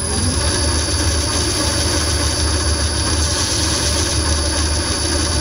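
Wood lathe running steadily at low speed: a steady motor hum with a thin, high-pitched whine above it.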